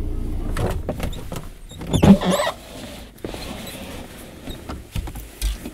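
Car's side window being lowered, the glass squeaking in its rubber seal about two seconds in, over a low steady engine idle. A few dull thumps near the end.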